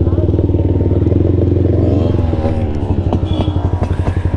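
Motorcycle engine running under the rider, with steady exhaust beats; about two seconds in the revs drop as the bike slows, and near the end the beats become slower and more spaced out.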